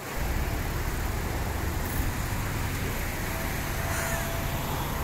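Steady low rumble of a running vehicle engine, with a thin steady tone joining about three seconds in.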